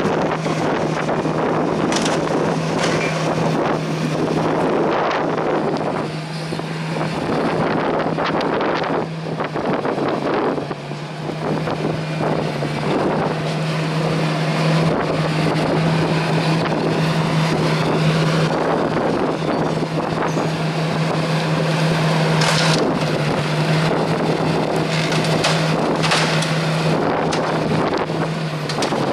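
Strong wind buffeting the microphone, with rain noise, over a steady low engine drone. A few sharper gusts break through, about two seconds in and twice near the end.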